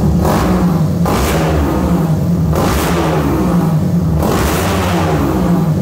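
Tuned Honda CG Titan single-cylinder four-stroke engine, built with a 4 mm overbore, running on an aftermarket exhaust and blipped up on the throttle about four times.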